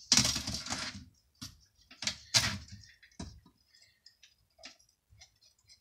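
A trim strip ripping away from an old shelf frame, then a few sharp clicks and small metallic ticks as staples are worked out with pliers.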